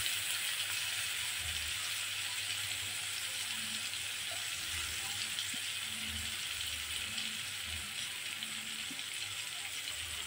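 Ground chili paste sizzling steadily in hot oil in a wok.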